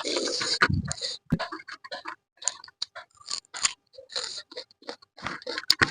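Close-miked chewing and crunching while eating crab curry, in irregular short bursts of crab shell and food. It is loudest in the first second.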